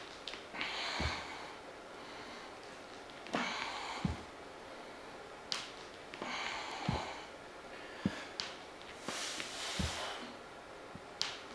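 Hard, forceful breathing, with a hissing exhale about every three seconds during barbell step-ups onto a bench. Each breath comes with a low thump of a foot on the bench or floor, four times in all, and there are a few short sharp clicks in between.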